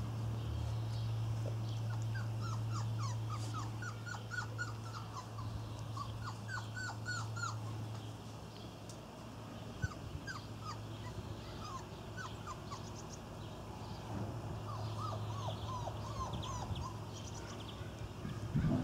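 Irish Terrier puppies whimpering and squeaking: two runs of short, high calls that drop quickly in pitch, over a steady low hum.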